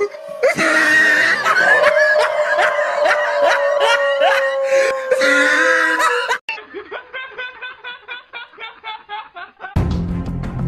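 Laughter: one long drawn-out laugh, then a quick run of short 'ha's, about four a second. It breaks off abruptly near the end.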